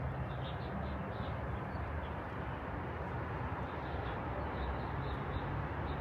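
Outdoor city ambience on the Xi'an City Wall: a steady low rumble, typical of distant traffic, with faint short high chirps now and then.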